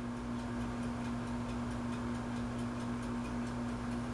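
A steady low electrical hum with a faint, fast, even ticking over it.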